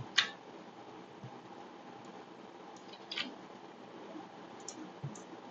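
Low room tone with a few short, soft clicks, the most distinct about a quarter second in and about three seconds in.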